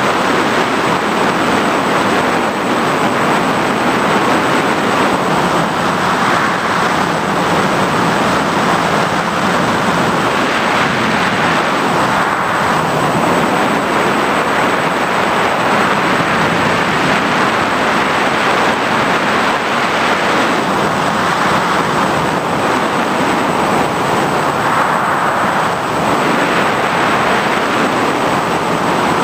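FPV racing drone's motors and propellers running steadily in flight, with rushing air and a thin steady high whine; the noise swells and dips slightly as the throttle changes.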